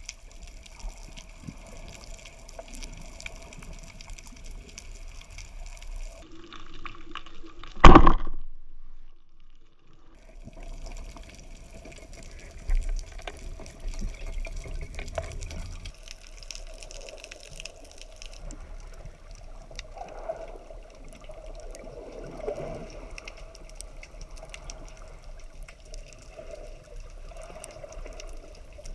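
Underwater ambience picked up by an action camera in its housing: a steady hiss with scattered crackling clicks and a faint steady hum. About eight seconds in comes one loud knock, after which the sound cuts out for about two seconds before the ambience returns.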